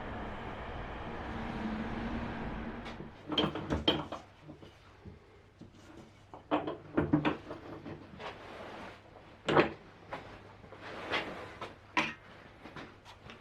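A steady hum and hiss for about the first three seconds, then irregular knocks and clunks of oak workpieces and hand tools being handled and set down on a workbench.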